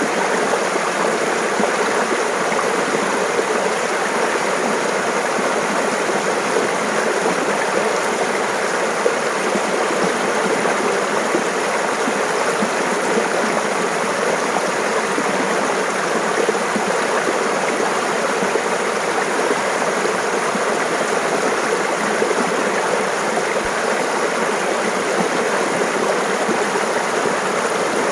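Mountain stream babbling and splashing steadily over rocks.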